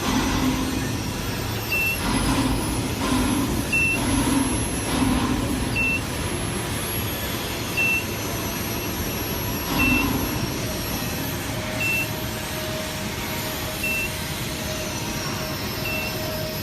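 A short high electronic beep repeating every two seconds, eight times, over steady machinery and site noise; a steady hum joins partway through.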